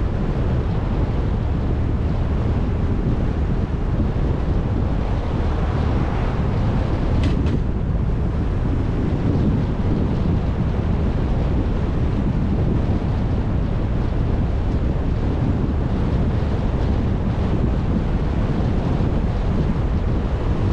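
Steady rush of wind and road noise from a car driving, with wind buffeting the microphone. A brief high-pitched click sounds about seven seconds in.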